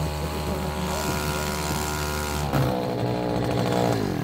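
Small gas outboard motor with a string-trimmer-style engine running steadily. Its pitch drops about midway, then falls away as it shuts off at the end. It is running at only about half throttle, which the owner puts down to a faulty throttle cable.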